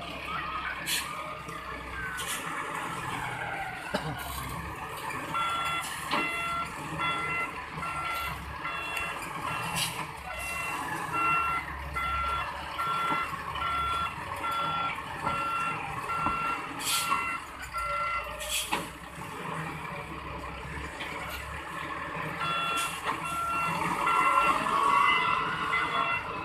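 Sonking SK-100D wheel loader working, its Yunnei YN38GBZ turbo diesel running steadily while its reversing alarm beeps in a steady series from about five seconds in to about eighteen, then starts again about twenty-two seconds in. A few sharp knocks sound over it.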